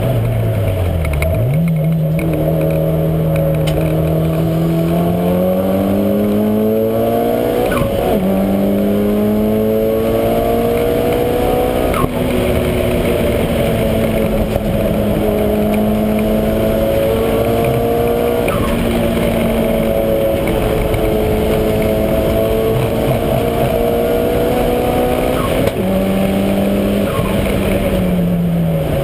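Mitsubishi Lancer Evolution V's turbocharged four-cylinder engine being driven hard, its pitch climbing and falling as the car accelerates and slows, with sudden jumps in pitch at about half a dozen gear changes.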